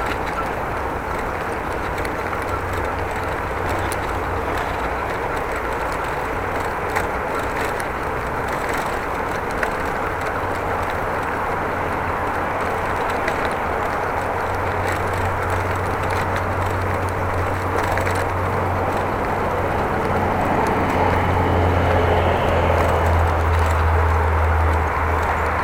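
Wind rushing over the microphone with tyre and road noise from a moving bicycle. The low wind rumble grows heavier in the last third.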